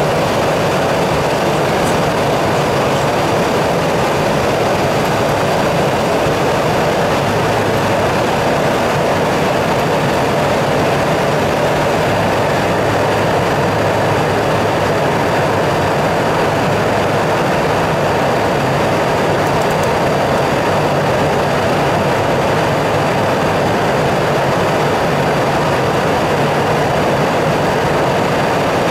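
Steady rush of airflow and engine noise heard inside an airliner cockpit in flight, unchanging throughout, with a faint high steady whine above it.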